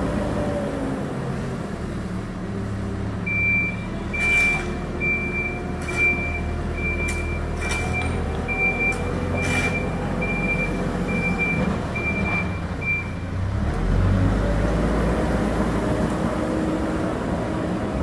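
Hidromek 102S backhoe loader's diesel engine running, with a reversing alarm beeping in a steady series, a little more than one beep a second, for about ten seconds. A few sharp metallic knocks fall among the beeps. Near the end the engine runs louder.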